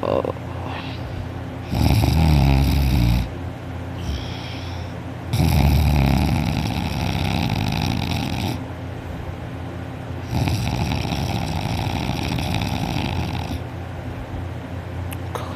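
A person in deep sleep snoring loudly with the mouth open, lying on her back: three long, rough snores about four seconds apart, with quieter breathing between them.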